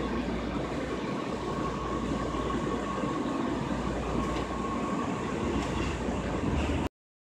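Interior running noise of a 1996 Breda LRV2 light rail car: a steady rumble of wheels on track with a faint steady whine in the middle seconds. The sound cuts off abruptly near the end.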